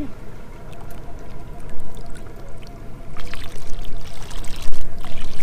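Water pouring from a plastic water bottle and splashing onto the sea surface, getting stronger past the middle.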